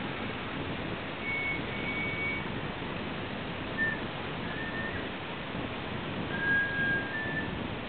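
Steady rush of wind and surf on the beach, with several short, high, thin whistle-like tones, each held for about a second, coming about a second in, about four seconds in and again near six to seven seconds in.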